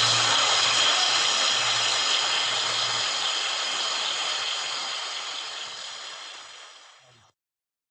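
Opera audience applauding, a dense even clapping that slowly fades and cuts off about seven seconds in.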